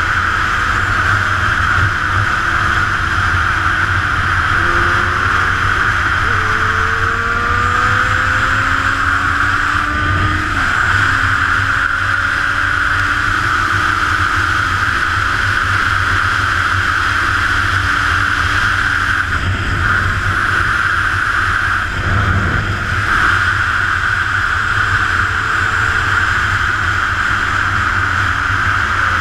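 Steady wind rush over a motorcycle-mounted action camera at road speed, with a sport bike's engine faintly audible underneath, its pitch climbing and then dropping back several times as it shifts through the gears.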